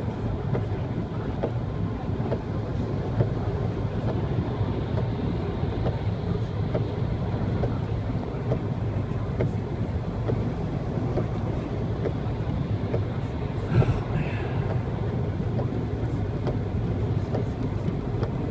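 Steady low rumble of a car driving on a wet freeway, heard from inside the cabin, with scattered light ticks of rain on the windshield. One sharper knock about fourteen seconds in.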